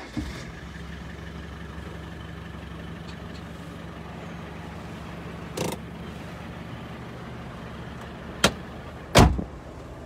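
Land Rover Defender's engine starts at once and settles into a steady idle. A sharp click comes near the end, followed by a louder thump.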